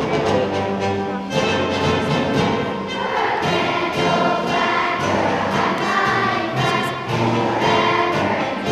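Children's choir singing with instrumental accompaniment.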